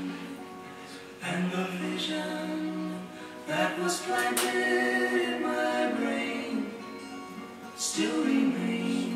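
Background music with singing.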